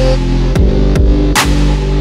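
Dubstep-style electronic music with a heavy sustained bass and sharp drum hits, the loudest about one and a half seconds in.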